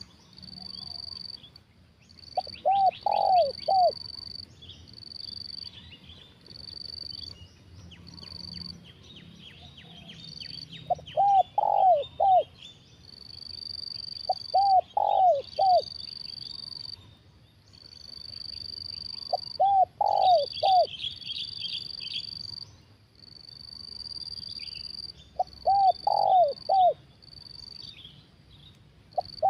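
Spotted dove cooing: phrases of three or four hooting notes, repeated every few seconds. Behind it an insect keeps up a high steady buzz that starts and stops about once a second.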